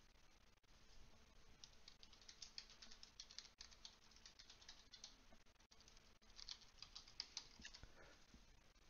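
Faint clicking of computer keyboard typing, in two quick runs of keystrokes.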